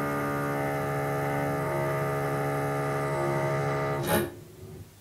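Intro music: a held chord of steady tones, a few notes shifting now and then. About four seconds in it ends with a short swish, leaving faint room tone.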